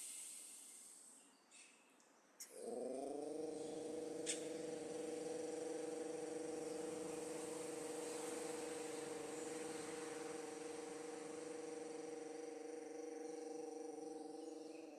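A long vocal tone, held steady on one pitch for about twelve seconds as the breath goes out after a deep inhalation. It slides briefly up into pitch a couple of seconds in, after a quiet start.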